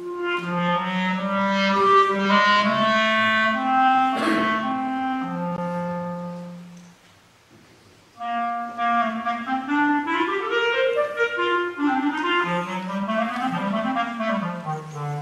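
Clarinet playing a melody: a phrase of held notes that dies away about seven seconds in, a pause of about a second, then a livelier passage of quick runs climbing and falling.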